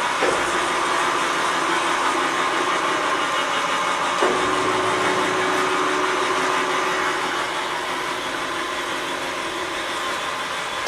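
Blanchard 18-36 rotary surface grinder running with its coolant pump on and the grinding wheel not yet started: a steady mechanical hum and hiss, with a knock about four seconds in followed by a held tone for a few seconds.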